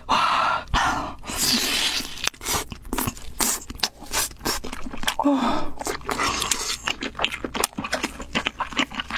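Close-miked eating of sauce-glazed chicken drumsticks: many short wet bites, smacks and chewing clicks as the meat is pulled off the bone. Between them come a few loud open-mouthed breaths out, near the start, about a second and a half in and about five seconds in, a reaction to the spicy food.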